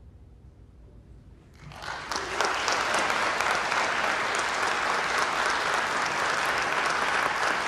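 Audience applause breaking out after a brief hush at the end of a brass band piece: a second and a half of quiet, then steady clapping from a concert hall crowd.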